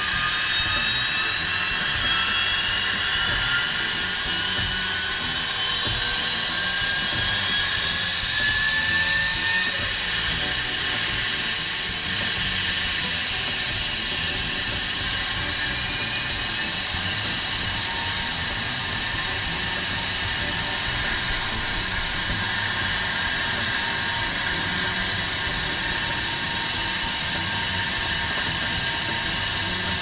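2.8 MW Kawasaki GPB30 gas turbine generator set starting up: a high multi-toned whine climbs steadily in pitch for over half the time as the turbine spools up, then holds at a steady pitch.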